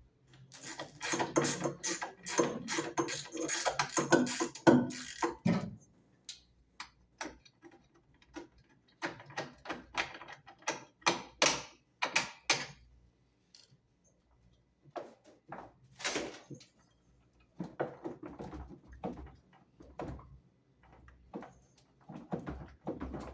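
Hand tools clicking and knocking on metal parts under a washing machine, in quick irregular runs of sharp clicks, densest for the first few seconds and then in scattered groups.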